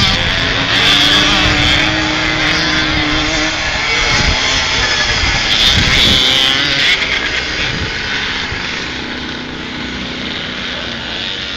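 Two-stroke motocross bikes racing on a dirt track, their engines revving up and down as they pass. The sound grows fainter after about seven seconds.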